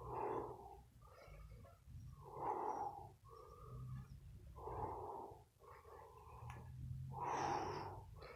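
A man breathing hard from exertion while exercising with a heavy wooden stick: four loud exhales about two and a half seconds apart, with softer inhales between.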